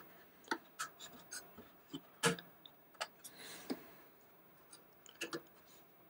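Scattered light clicks and taps, the loudest a little past two seconds, with a soft rustle after about three seconds: a SO-DIMM laptop-style memory module being unclipped from its slot's retention latches and pulled out.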